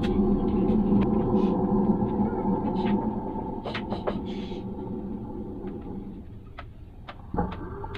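Sheets of paper being handled and shuffled, with a few short, sharp crinkles, over a steady background hum that fades out after about six seconds.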